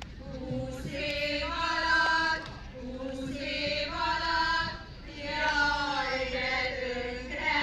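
Small folk-song choir singing together in unison without instruments, in long held phrases of a second or two.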